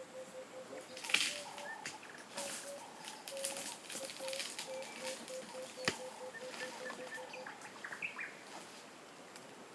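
Faint bush ambience: a short call repeated over and over at one steady pitch, with a few higher notes, broken by intermittent rustling and scraping and one sharp click about six seconds in.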